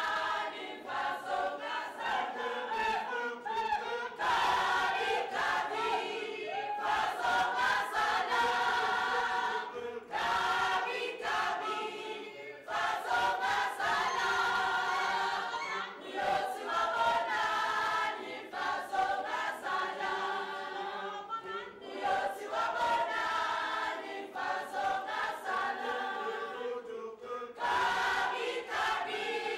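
A group of voices singing together as a choir, one continuous song.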